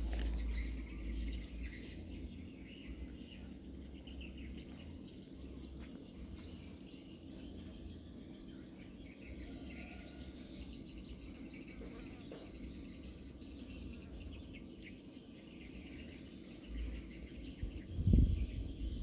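Outdoor background with a faint, steady high insect drone over a low rumble; a few loud, dull thumps come near the end.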